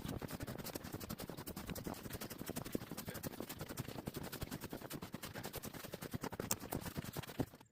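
Footsteps of a person walking outdoors: close, rapid crunching and rustling with each step and movement. The sound cuts out abruptly for a moment near the end.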